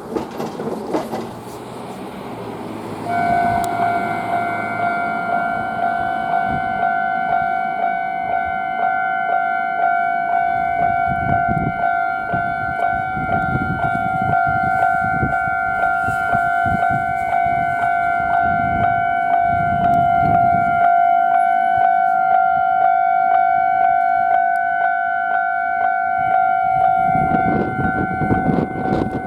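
Railway level-crossing warning bell starting about three seconds in and ringing on with an even, pulsing tone, the signal that a train is approaching. A low rumble comes and goes beneath it and grows again near the end.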